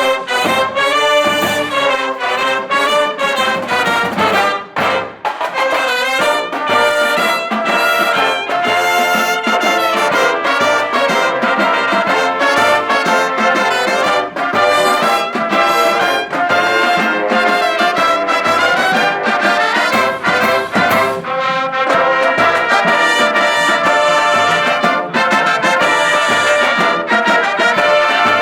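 Marching band playing a loud brass-led piece: trumpets and trombones over a steady drum beat.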